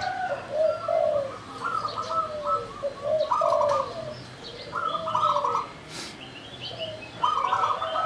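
Zebra dove singing its cooing song: phrases of quick, rapidly pulsed coos repeated several times, with small birds chirping faintly and higher behind it, and a single sharp click about six seconds in.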